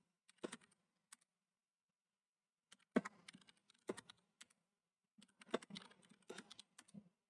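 Faint keystrokes on a computer keyboard, typed in short irregular bursts, with a pause of over a second after the first couple of keys.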